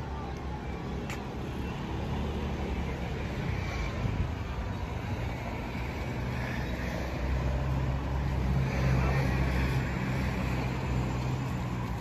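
Road traffic: a motor vehicle's engine rumbling low and steady, swelling louder in the second half as it passes, with passers-by talking faintly.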